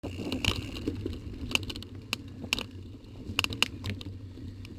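Mountain bike riding a dirt trail, heard from a camera mounted on the rider or bike: a steady low rumble of tyres on the ground with sharp, irregular clicks and rattles from the bike over bumps.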